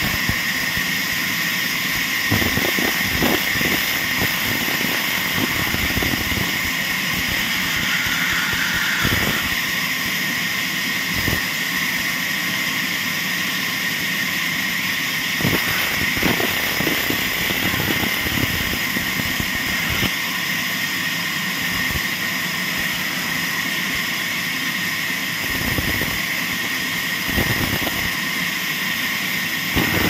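Band saw running with a steady whine while its blade cuts through a wooden block, with short irregular surges of cutting noise as the wood is fed and turned.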